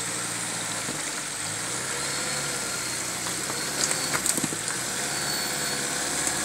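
Mitsubishi L200 pickup's engine running at low revs as it crawls through a shallow rocky stream, over the steady rush of flowing water, with a few sharp clicks and knocks about four seconds in.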